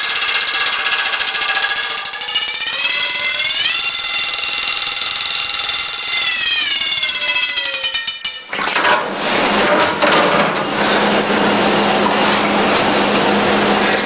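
Wind-up mechanical alarm bells ringing under water in a sink: a rapid clapper rattle on the gong with ringing tones that glide up about a quarter of the way in and slide back down before cutting out past halfway. Then a harsher, noisier ringing with a steady low tone takes over.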